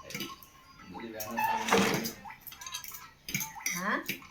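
Metal utensils clinking and scraping against plates and bowls in short, irregular knocks, with a longer scrape about two seconds in, as instant noodles are mixed with their seasoning.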